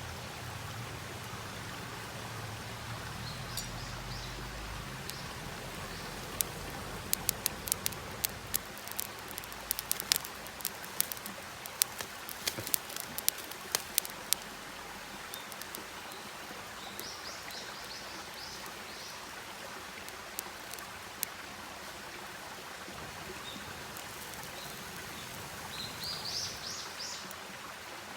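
Campfire crackling, with a run of sharp pops and snaps in the middle, over a steady rushing hiss. Short rising bird chirps come a few times.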